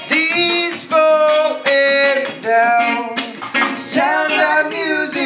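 Live band playing a song: a man sings long held notes into the microphone over electric guitar and band backing.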